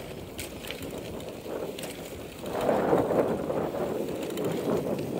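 Bicycle coasting on a paved path: the rear freewheel ticks faintly over a steady rush of tyre and wind noise, which swells about halfway through.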